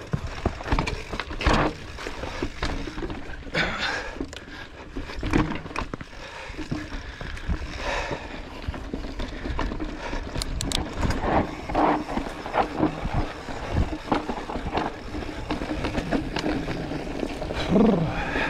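Mountain bike riding down a dry dirt singletrack: tyres rolling and crunching over dirt and stones, with irregular knocks and rattles from the bike as it goes over bumps.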